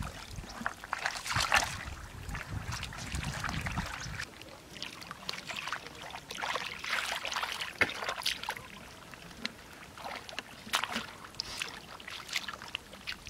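Hands sloshing and splashing in shallow muddy water as they feel through the mud, in irregular splashes. A low rumble runs under it until about four seconds in.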